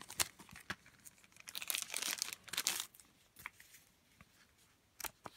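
Thin clear plastic bag crinkling and rustling as paper leaflets are handled and drawn out of it, busiest about two seconds in, then a few faint ticks.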